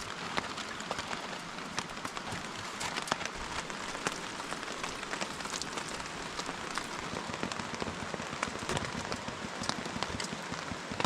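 Steady rain, with many sharp individual drop hits heard throughout.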